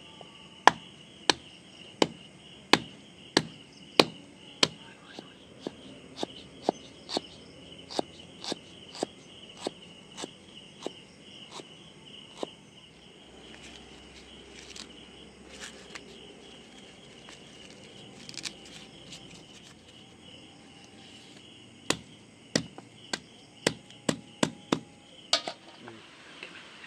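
Large curved knife chopping and crushing garlic and ginger on a wooden board, about one and a half strokes a second, growing fainter and stopping about halfway through, then a quicker run of strokes near the end. Steady cricket chirring underneath.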